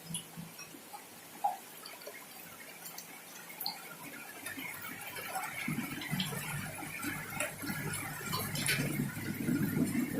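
Rain falling in large drops: scattered ticks and drips of single drops, then from about halfway through a louder, denser patter.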